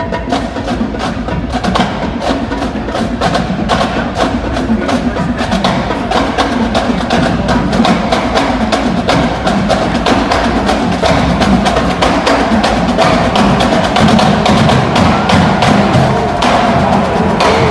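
Background music with a steady beat of sharp, clicky percussion hits.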